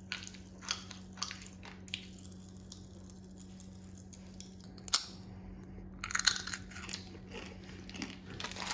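Popping candy crackling in a mouth while a chocolate-coated cookie stick is chewed: scattered sharp little pops and clicks, thickest in the first two seconds, with a louder pop about five seconds in.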